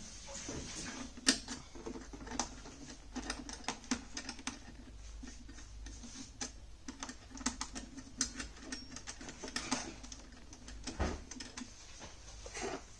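Small metal hardware clicking and tapping irregularly as a screw and nut are fitted by hand into a steel monitor mounting bracket. There is a sharper knock about a second in and another near eleven seconds.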